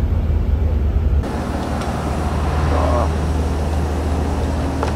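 Deep, steady engine rumble heard from inside a vehicle on the airport apron. About a second in it cuts to the outdoor hum of idling buses and traffic at an airport kerb, with people's voices.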